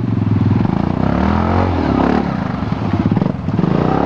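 ATV engine running under throttle as the quad climbs a steep, muddy slope, its note rising and falling.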